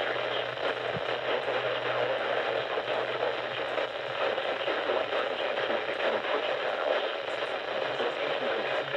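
Static-filled radio reception: a steady hiss with a low hum under it that weakens about halfway through.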